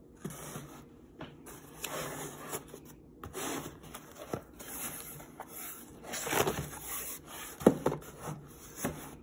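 Cardboard shipping box rubbing and scraping as it is handled and turned over on a tabletop, with several sharp knocks; the loudest knock comes late on.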